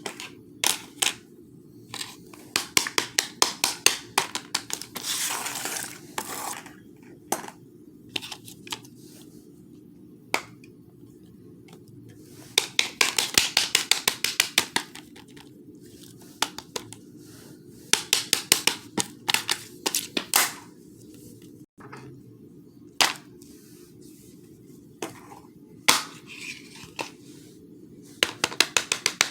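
Fidget toys being handled: bursts of rapid clicking and clattering, separated by short pauses, with a few single clicks between them.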